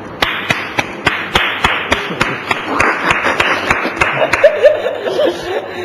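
Hands clapping in a steady rhythm, about three or four claps a second, with laughter about four seconds in.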